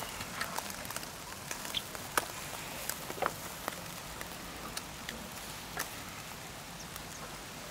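Skewered catfish chunks sizzling over glowing charcoal: a steady hiss with scattered sharp crackles and pops. The metal skewers clink as they are turned on the grill.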